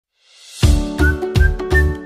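Upbeat background music with a whistle-like melody over a steady beat, about three beats a second. It enters with a short rising swoosh about half a second in.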